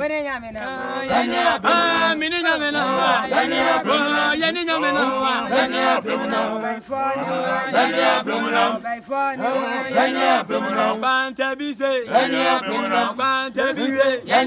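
A small mixed group of men's and women's voices singing a song together, unaccompanied.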